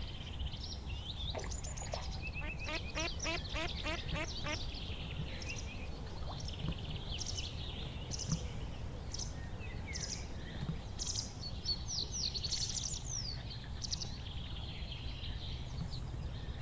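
Several small birds singing and chirping: quick trilled phrases in the first few seconds, then scattered high chirps and short phrases, over a low steady background rumble.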